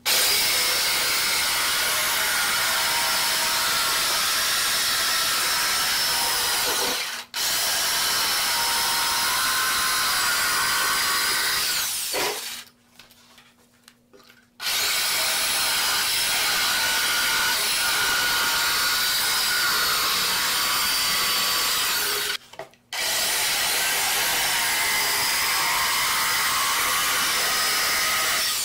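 Corded jigsaw cutting half-inch MDF along a curved line, running steadily. It stops briefly about a quarter of the way in, for about two seconds near the middle, and briefly again about three quarters through.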